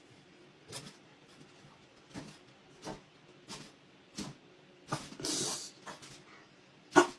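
A pet animal making a series of short, irregular sounds, with a longer hissing one a little past the middle and the loudest just before the end.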